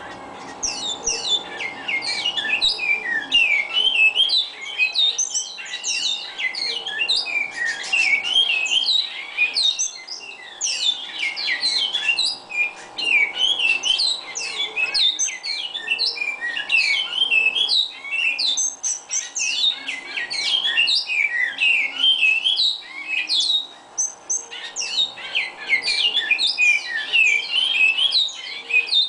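Great-billed seed finch (bicudo) singing: a long run of rapid, varied whistled notes with a few brief pauses, over a faint steady hum.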